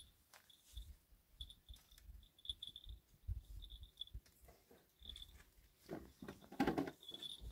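Faint animal sounds: short high chirps repeating throughout, with soft low thumps and a louder call about six and a half seconds in.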